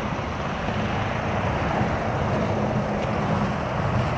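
Steady drone of a vehicle engine running, over the even hiss of road noise.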